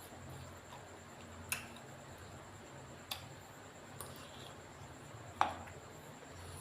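Four sharp light clicks or taps spread over a few seconds, the last and loudest about five seconds in, over a faint steady low hum.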